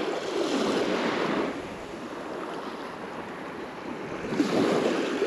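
Ocean surf breaking and washing up the beach: a rush of water at the start that fades after about a second and a half, then a second wave rushing in near the end.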